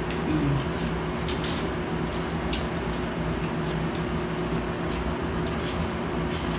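Corn on the cob being bitten and chewed close to the microphone: short, scattered clicks of biting and chewing. Underneath runs the steady hum of a room fan.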